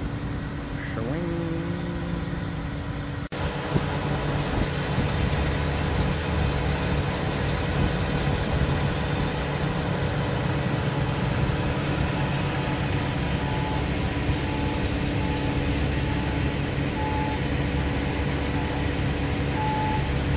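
Diesel engine of a concrete pump truck running steadily at idle, a steady low hum with a few held tones. The sound drops out for an instant about three seconds in and comes back a little louder.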